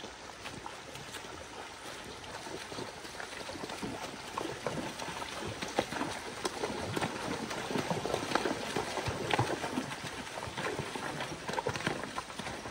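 Pack horses wading across a shallow rocky stream, their legs splashing through the water over the rush of the current. The splashing grows louder about four seconds in.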